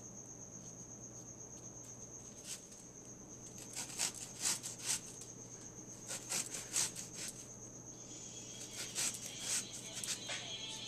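Kitchen knife cutting through a red onion held in the hand: a run of crisp cuts and snaps, loudest in the middle, over a steady high-pitched whine. Faint music comes in near the end.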